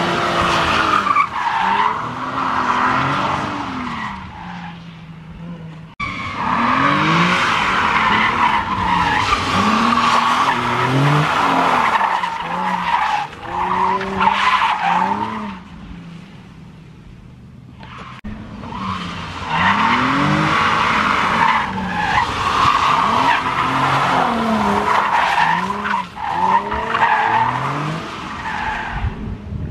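Cars drifting: engines revving up and down hard with tires squealing, in several passes, with quieter stretches about four and fifteen seconds in.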